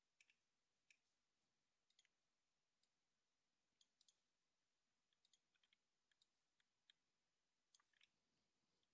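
Near silence broken by faint, irregular clicks of a computer mouse, several of them in quick pairs.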